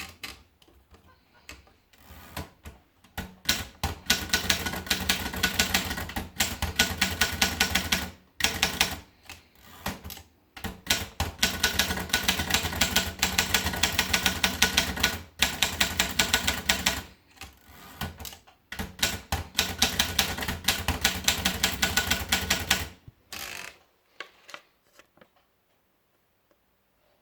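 Rheinmetall typewriter being typed on: fast runs of keystrikes in several bursts a few seconds long, with short pauses between them. The typing stops near the end.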